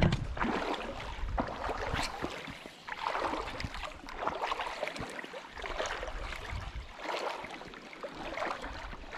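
Shallow creek water running and sloshing around a wading angler, rising and falling in uneven swells about once a second.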